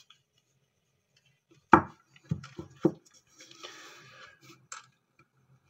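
Handling noise as a tablet is picked up and moved over a desk: one sharp knock, then a few lighter knocks in quick succession, a brief soft scraping rustle and a small click.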